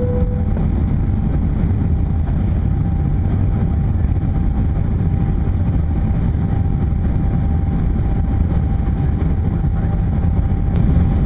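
Steady cabin roar of a Boeing 737 airliner in flight on approach, heard from a window seat, with a faint steady whine above it.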